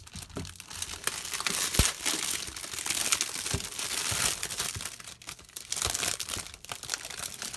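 Clear plastic shrink wrap crinkling and tearing as hands pull it open around a cardboard figure box. The crackling is irregular and continuous, with a sharp click about two seconds in.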